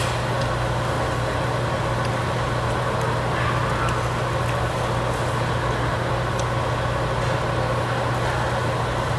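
Steady hum and rush of a tabletop barbecue grill's overhead ventilation hood drawing off the smoke, with a few light clicks of chopsticks and dishes.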